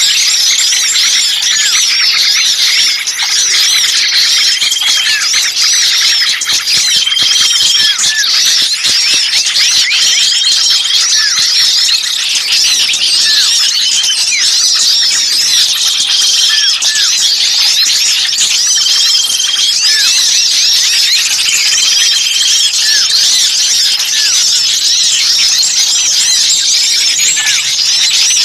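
Dense, continuous chorus of many small songbirds, chattering shrilly, with a short level whistle recurring every few seconds. This is a bird-lure recording of agitated small birds calling ("burcil ribut"), used to draw other birds in.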